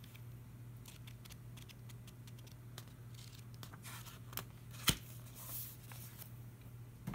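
Pages of a thick paper LEGO instruction booklet being flipped and riffled by hand: a run of quick, soft papery flicks, with one sharper snap about five seconds in.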